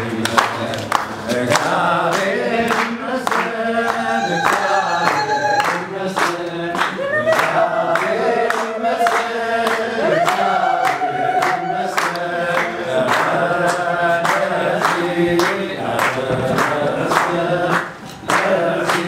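Choir singing a hymn over a steady percussive beat of about two to three strokes a second; the sound drops briefly near the end.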